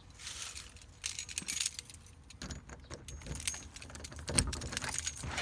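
Light metallic jingling and clinking, with a few dull handling thumps.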